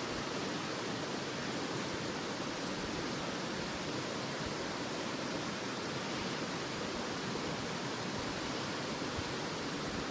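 Steady rushing of flowing river water, an even unbroken wash of noise.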